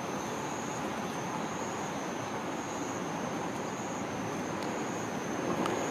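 Distant cicadas droning steadily on one high note over a low, even background rumble.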